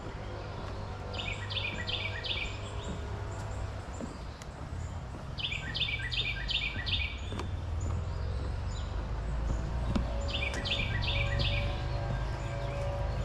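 A songbird singing the same short phrase of about five quick notes, repeated roughly every four to five seconds, over a low steady rumble.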